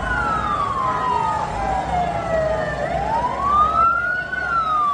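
A siren wailing in long slow sweeps: its pitch falls for about three seconds, climbs back, and starts falling again near the end, over the noise of a crowd.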